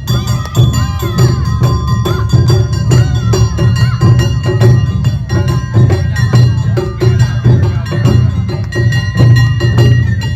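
Awa-odori festival band playing: a wavering bamboo-flute melody over heavy drums and a dense, steady rhythm of clacking and clanging percussion.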